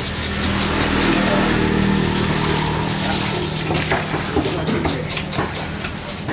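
Busy work-floor din: a motor running with a steady low hum under a loud noisy wash, with voices talking in the background.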